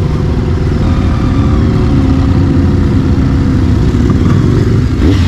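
Onboard sound of a BMW K1300R's inline-four engine while riding, its pitch rising and falling with the throttle, over a steady low rumble.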